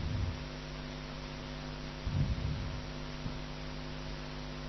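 Steady electrical mains hum with hiss: the recording's own background noise, with a faint low thump about two seconds in.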